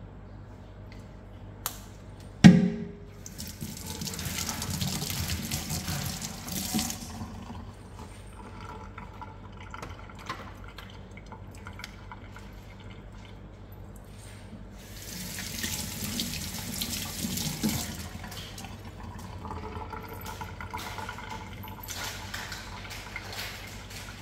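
A sharp knock, then water running from a kitchen tap into a sink in three separate runs of a few seconds each.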